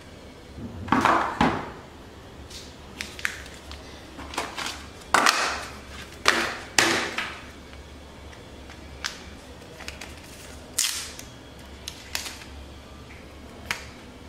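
Hands handling a new smartphone's packaging and accessories: short rustles and crinkles of plastic and cardboard with light plastic clicks. The sounds come at irregular intervals, the loudest about a second in and again around five to seven seconds in.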